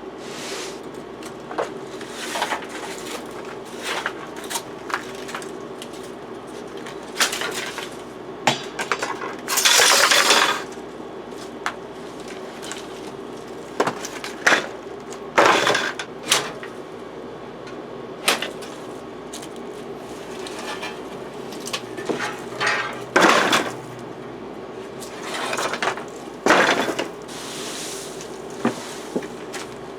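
A metal digging tool striking and scraping in soil, roots and stones: irregular sharp clinks and knocks, with a longer scraping stretch about ten seconds in and another near the end.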